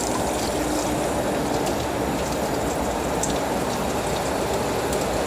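Tap water running steadily and splashing into a sink.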